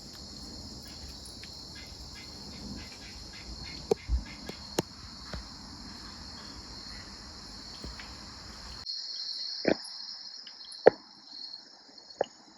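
Steady evening chorus of crickets, a continuous high trill, with scattered short clicks and taps; the low background noise drops away abruptly about nine seconds in.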